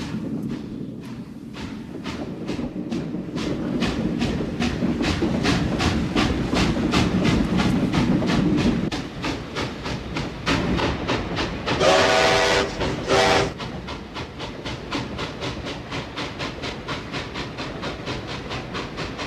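Freight train rolling past: steel wheels clacking rhythmically over rail joints, about three clacks a second, over a low rumble that eases off about nine seconds in. Around twelve seconds in the train horn sounds twice, a longer blast then a short one, the loudest moments.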